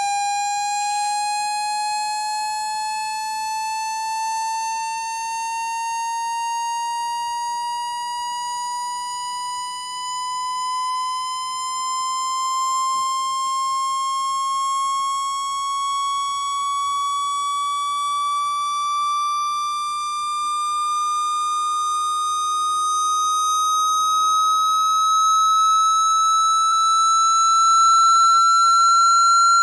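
Synthesized speaker-cleaning tone: a single electronic tone with overtones, slowly rising in pitch throughout and getting somewhat louder toward the end. It is a frequency sweep played to shake water or dust out of a phone speaker.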